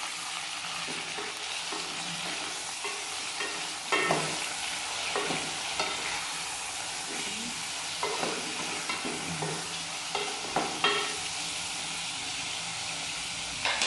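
Chicken pieces sizzling steadily in hot oil with browned garlic and onion as they are sautéed in a metal pot. A spatula scrapes and knocks against the pot several times from about four seconds in as the meat is stirred.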